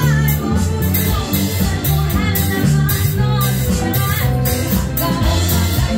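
Live band playing: a woman singing into a microphone over electric bass, electric guitar, drum kit and keyboard, with a steady cymbal beat.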